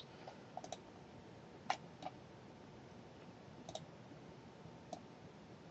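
Faint computer mouse clicks, about eight, some single and some in quick pairs, spread over a few seconds.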